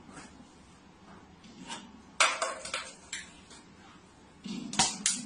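A plastic water bottle knocking and clattering on hard surfaces: a sharp knock about two seconds in, several quicker, smaller knocks after it, and two more knocks near the end.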